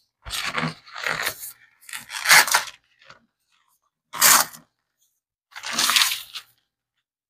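Cardboard corn starch box and its paper liner being torn and peeled away by hand from a packed block of starch: five separate short rips with pauses between.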